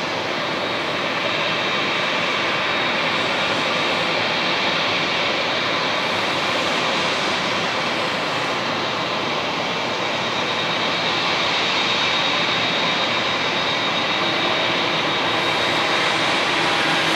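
Boeing 787-9 airliner's Rolls-Royce Trent 1000 turbofan engines running at low taxi power: a steady jet whine and rush with a faint high tone, growing slightly louder as the aircraft taxis closer.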